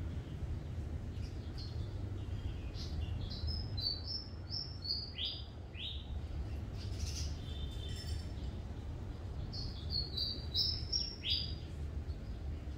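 A small bird singing in runs of quick, high chirps with a few downward-sliding notes, in two phrases, the second near the end, over a steady low background rumble.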